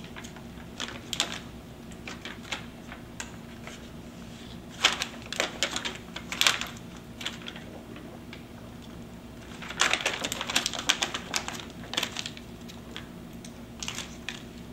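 Mastic tape being peeled off its paper liner and wrapped around a coaxial cable: bursts of sharp crackling and rustling, heaviest about ten seconds in.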